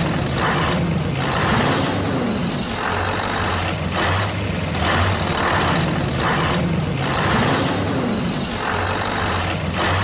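Heavy truck engine sound running steadily with a regular pulsing chug, the same pattern coming round about every six seconds like a looped effect.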